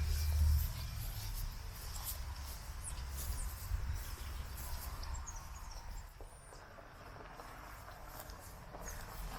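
Outdoor ambience: faint, short, high-pitched chirps now and then over a low rumble that is loudest in the first half-second and then eases off.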